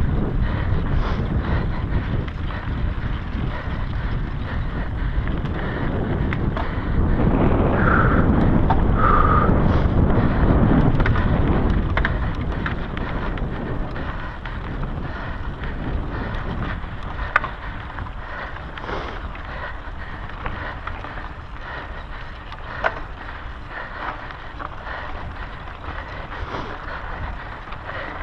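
Mountain bike ridden fast over a dirt trail: wind rushing on the GoPro microphone over the rumble of knobby tyres rolling on dirt. The rush grows louder for a few seconds about a third of the way in, then eases off, with a couple of sharp knocks later on.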